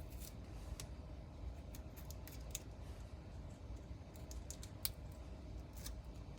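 Handling noise of adhesive grip tape being worked onto a Glock's polymer frame: scattered small clicks and crinkles as the pieces are lifted, tucked under and pressed down, with one sharper click near the end.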